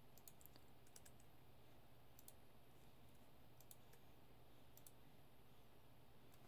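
Near silence with a low steady hum and a few faint, scattered clicks of a computer mouse.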